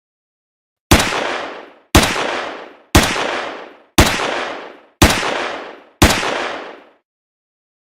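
Six sharp bangs, evenly spaced about a second apart, each trailing off in a short noisy decay, like single gunshots.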